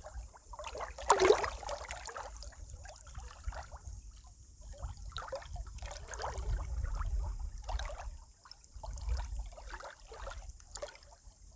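Small waves lapping and trickling against a muddy, stony reservoir shore, with one louder splash about a second in. Wind rumbles on the microphone in stretches.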